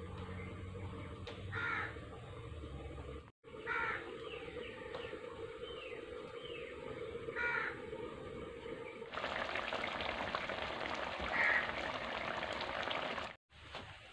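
Crows cawing a few times, then from about nine seconds in a steady sizzling hiss of fish curry cooking in a wok over a wood fire.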